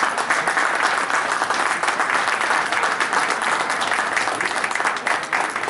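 Audience applauding, many hands clapping steadily and dying away at the very end.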